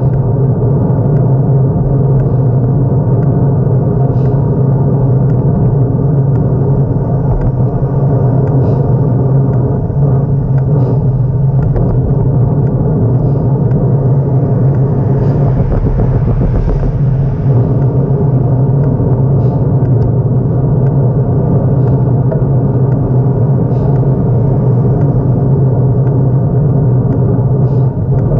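Motorcycle engine running steadily at cruising speed, a constant low drone with heavy wind and road rumble. There is a brief rise in hiss about halfway through.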